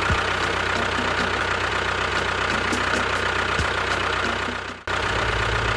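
A motor running steadily with a low, even hum and faint regular ticking; it cuts off abruptly for a moment near the end, then carries on.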